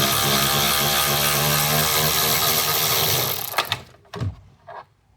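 Cordless power drill-driver running steadily, spinning out a seatbelt retractor mounting bolt, then stopping about three and a half seconds in, followed by a few light clicks.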